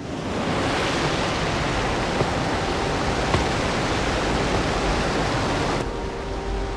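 Rushing water from wall-high indoor waterfalls, a steady full hiss that cuts in suddenly out of silence. Near the end the highest hiss drops away and a few faint steady tones come in under the water.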